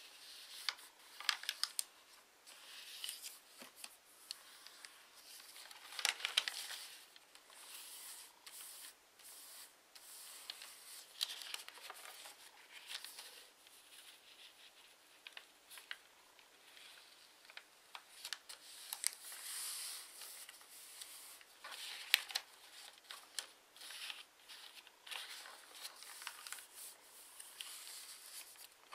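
A sheet of pre-creased origami paper being folded and pressed flat by hand: irregular rustling and crackling with sharp crinkles, the strongest about six seconds in and again around twenty-two seconds.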